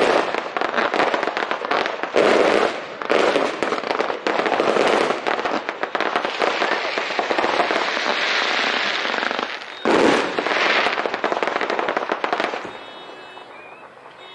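Fireworks going off in rapid succession: a dense, continuous crackling of many small reports mixed with heavier bangs, the loudest bang about ten seconds in. The barrage dies away near the end.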